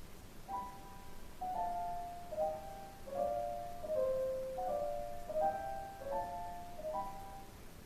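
Solo piano playing a slow, soft passage of separate notes and small chords in the middle-upper register. The notes begin about half a second in and the last one sounds around seven seconds.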